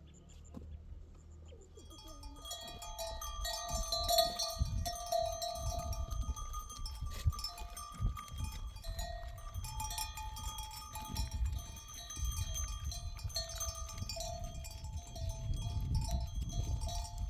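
Many small bells worn by a flock of sheep, clanking and ringing together as the animals move. They start about two seconds in, over a low rumble.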